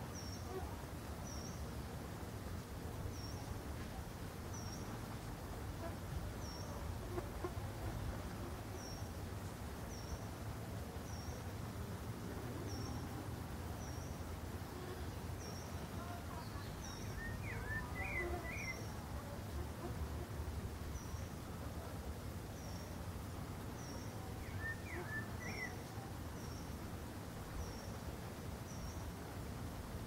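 Pale-breasted thrush singing two short warbled phrases, one a little past halfway and another later, over a steady low background rumble. A short high chirp repeats about once a second.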